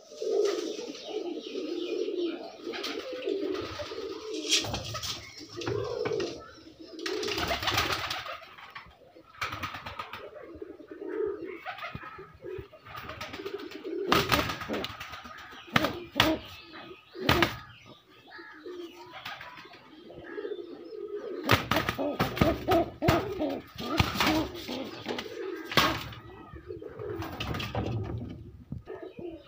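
Domestic pigeons cooing repeatedly, with intermittent knocks and rustling from handling around the nests.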